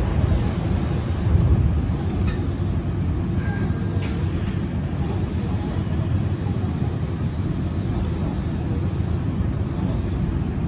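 Hanshin Jet Car local train standing at a station, heard from the driver's cab: a steady low rumble from the train, with a couple of clicks and a brief high beep about three and a half seconds in.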